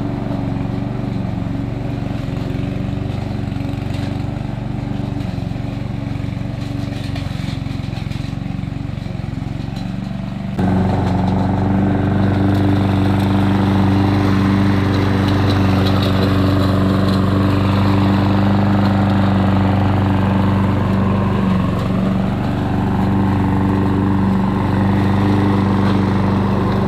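Lawn mower running steadily while mowing, a constant engine hum; about ten seconds in it suddenly gets louder and stays so.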